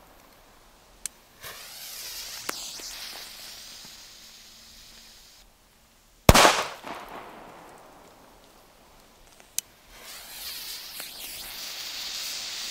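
Nico firecrackers: a lit fuse hisses and sputters for about four seconds, then a firecracker goes off with one loud, sharp bang a little after six seconds in. Near the end a second fuse hisses.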